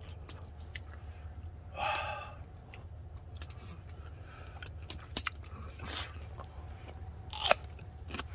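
A man chewing a mouthful of grilled beef close to the microphone, with wet mouth clicks and smacks, and a short breathy sound about two seconds in. A low steady hum runs underneath.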